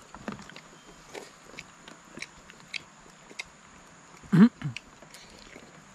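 Eating sounds: scattered small clicks and chewing noises, with one short loud vocal sound about four and a half seconds in.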